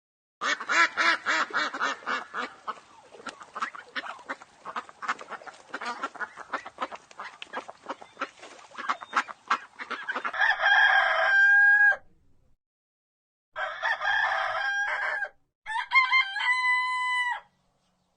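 Poultry: a long run of rapid clucking calls, then three separate crowing calls, each under two seconds, with a held note at the end.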